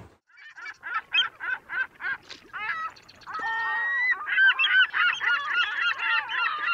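A flock of geese honking: short calls in quick succession at first, then many calls overlapping from about four seconds in.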